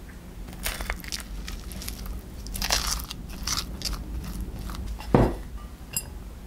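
A plastic rice paddle scrapes and digs through corn rice in a pot, crunching on a scorched, overcooked crust. A run of crunchy scrapes is followed by a dull thump about five seconds in and a short ringing clink near the end.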